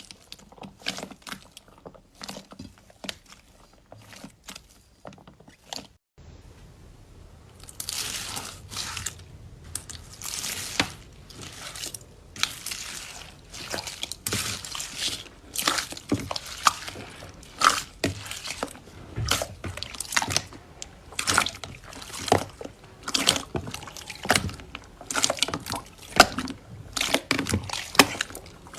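Slime being squeezed and pressed by hand, giving a run of crackling pops and wet squelches; the sound gets denser and louder about six seconds in.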